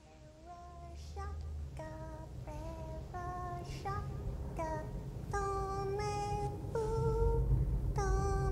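A high, light voice singing a slow melody of separate held notes, growing steadily louder, over a low steady rumble.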